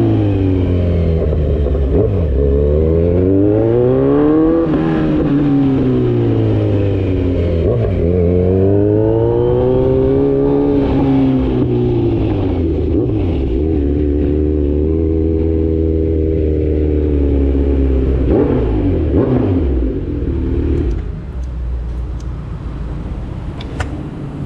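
Kawasaki Z900 inline-four engine with an Austin Racing full exhaust under way. The revs climb and fall smoothly twice, hold steady for several seconds, then fall away to a lower, quieter note near the end as the bike slows.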